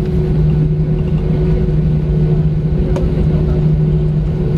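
Steady cabin hum and low rumble of an Airbus A320 taxiing after landing, its engines at idle, with a faint click about three seconds in.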